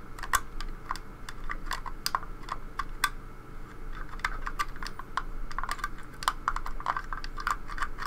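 Lock pick clicking and scraping against the plastic levers inside a 3D-printed lever lock as it is being picked, in quick, irregular light clicks.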